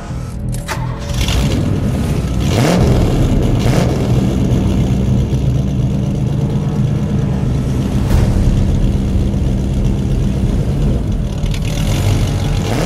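Classic Chevrolet hot rod's engine running loudly with a steady drone, after a few brief revs in the first seconds.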